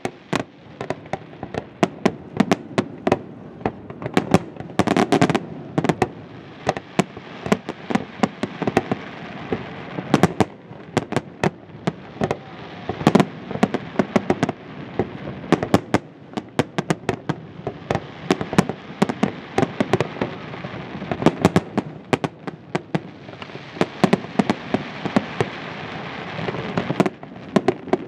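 Fireworks display: aerial shells bursting in a dense, irregular barrage, with sharp bangs coming several times a second over a steady din of further bursts.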